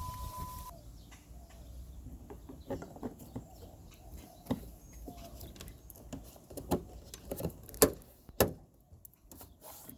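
Irregular clicks and knocks of hands refitting a car's rear taillight assembly, the sharpest near the end. A steady beep stops just under a second in.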